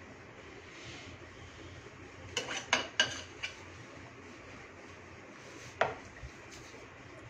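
A metal icing spatula clinking against dishware while frosting is worked: a quick run of about four sharp clinks a little over two seconds in, and one more near six seconds.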